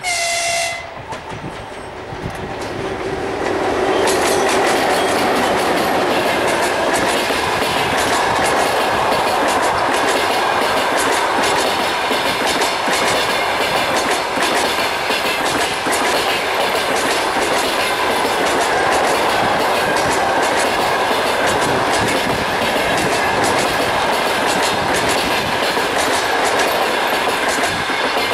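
EP1M electric locomotive and its long train of passenger coaches passing at speed. A brief tone sounds at the start. The sound swells as the locomotive goes by, then the coaches roll past with a steady, loud rumble and rhythmic clickety-clack from the wheels over the rail joints.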